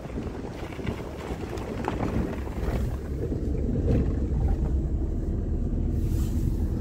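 A car's engine and tyre rumble heard from inside the cabin as it drives slowly along a rough road, getting a little louder a couple of seconds in.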